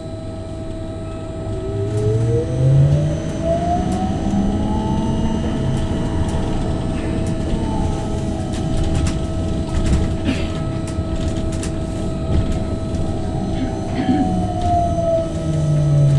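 VinLine trolleybus's electric traction drive whining as it runs, the whine rising in pitch for about five seconds as it speeds up, levelling off, then gliding slowly down as it slows. Steady electrical tones and road rumble run under it, with a few faint knocks or rattles near the middle.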